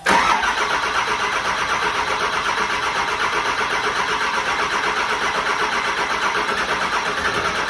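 Cummins diesel engine in a Humvee being started for the first time in two years, turning over with a steady, rapid rhythmic pulsing that begins abruptly.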